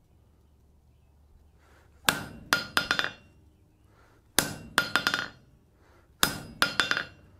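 Hand hammer striking a round veining butcher tool held in tongs on hot steel against the anvil, with three quick ringing blows at a time in three groups about two seconds apart, starting about two seconds in. The tool is chasing a rounded centre vein into the hot bar, spreading the material.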